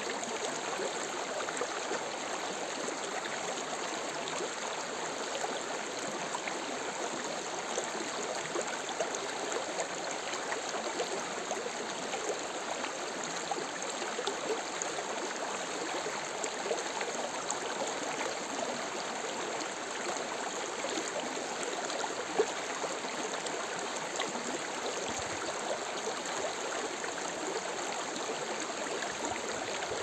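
Shallow mountain stream running over stones and pebbles: a steady babbling and trickling with many small splashes, and one brief sharper sound about two-thirds of the way through.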